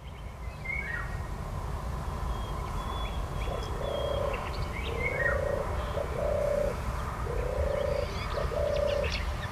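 European turtle dove purring its song: a series of low rolling notes, often in pairs, starting about three and a half seconds in. Other small birds chirp higher up over a steady low rumble.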